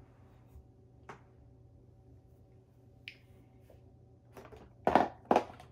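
Small cosmetic containers being handled and set down: a few faint clicks, then a short run of knocks near the end, the two loudest close together, over a faint steady hum.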